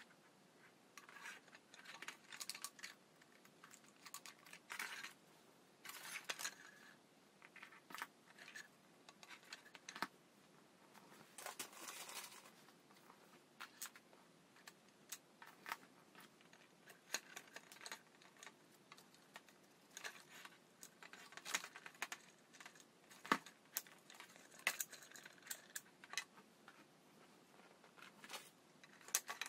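Thin plastic drink-bottle pinwheel crinkling and rustling as it is handled, with scattered light clicks and taps as a thin rod is worked through its cap. One sharper click comes about three-quarters of the way through.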